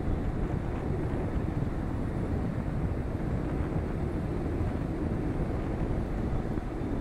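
Steady wind rush and road noise from a car driving on a highway, picked up by a camera mounted on the outside of the car, with wind buffeting the microphone.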